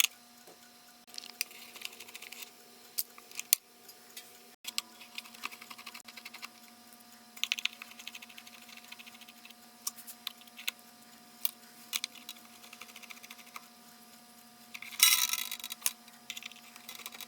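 Irregular small metal clicks and taps as the screws and nut holding a wall clock's movement in its wooden case are undone with a screwdriver, with a short scraping rattle near the end.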